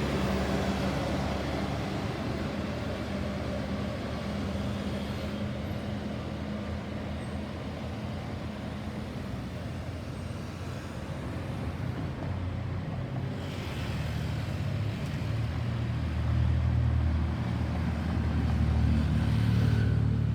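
Road traffic: vehicle engines running and tyre noise as vehicles pass, with a heavier vehicle's deeper engine drone growing louder over the last several seconds. No siren is heard.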